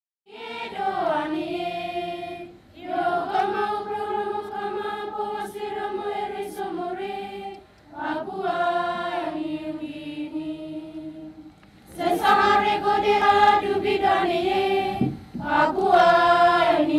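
A group of voices chanting together in long, sustained phrases, about five of them, each broken off by a short pause.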